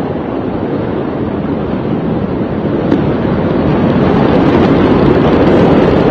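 Steady rushing noise of wind buffeting a phone's microphone, slowly growing louder.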